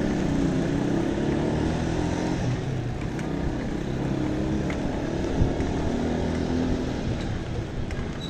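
Street traffic: car and motorcycle engines running close by over a steady rush of road noise, with one short knock about five seconds in.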